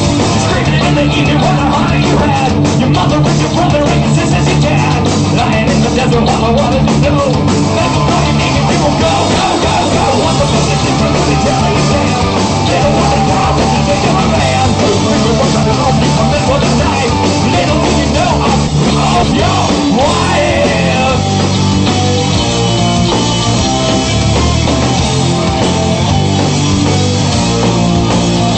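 A rock band playing a loud, steady instrumental passage with distorted electric guitars, bass and drums, and no clear vocal line.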